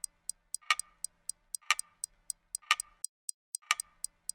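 Steady mechanical ticking: light sharp ticks about four a second, with a louder, ringing click once every second.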